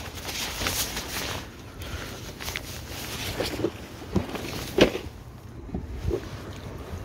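A hooked pike thrashing and splashing at the water's surface as it is landed, with several sharp knocks, the loudest about five seconds in.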